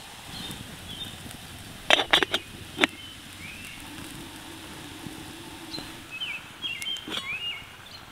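Metal lid of a stainless steel percolator coffee pot set down onto the pot, a quick cluster of sharp clinks about two seconds in. Small birds chirp briefly several times against a steady campfire background.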